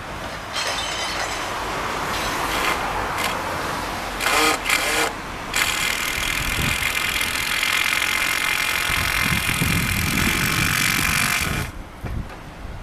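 Demolition excavator breaking down a building, with crashing and clattering debris, then a long grinding scrape that stops suddenly near the end.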